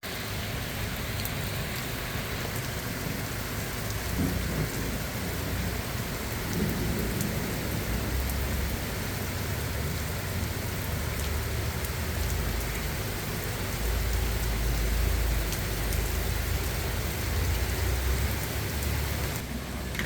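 Steady rain falling, with scattered drop ticks and a low rumble that swells and fades several times, mostly in the second half.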